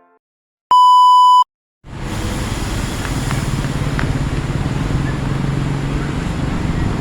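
A single loud electronic beep, one steady tone lasting under a second, then after a brief silence a steady rumble of engines and traffic that carries on to the end, with a low engine hum in it.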